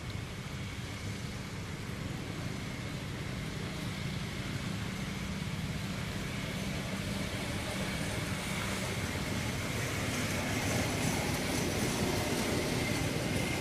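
Steady rumble of a vehicle engine that slowly grows louder, with a faint high steady tone joining about halfway through.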